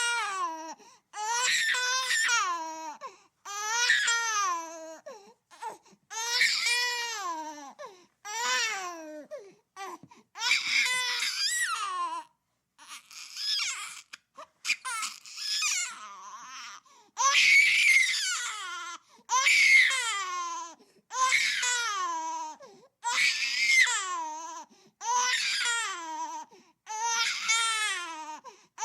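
Baby crying: a string of about fourteen wails, each one to two seconds long and falling in pitch, with short catches of breath between them.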